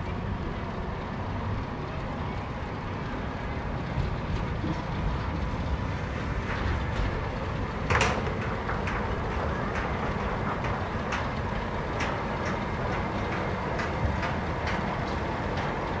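Boat of a water-channel ride moving along its fibreglass trough: a steady low rumble with scattered clicks and knocks, and one louder knock about halfway through.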